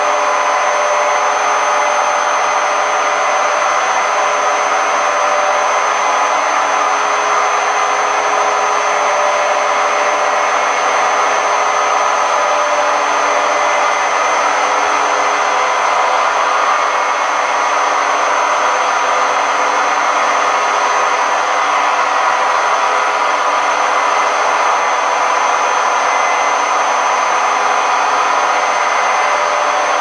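Hoover Quattro Powerjet AE140 washing machine on its fast spin, a loud, steady roar with several held whining tones. The drum bearings are broken.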